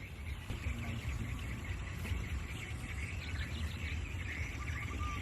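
Outdoor rural ambience: insects and birds chirping over a steady low rumble.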